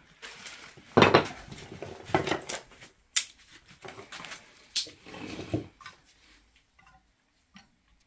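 Split logs and kindling knocking and clattering as they are stacked crosswise in a Romotop fireplace-stove's firebox: a series of sharp knocks and clinks that thin out after about six seconds.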